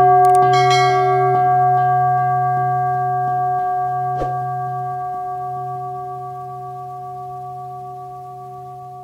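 Sustained bell tones: several steady pitches ring on and slowly fade away. A bright, shimmering chime sounds about half a second in, and a single sharp click comes about four seconds in.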